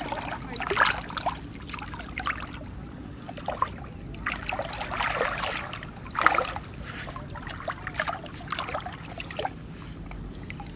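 Shallow muddy water splashing and sloshing in irregular bursts as hands and feet stir through it, with a sharper splash about a second in and another a little past the middle.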